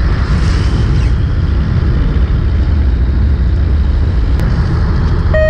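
Fishing boat's engine running with a steady low rumble. A short flat tone sounds near the end.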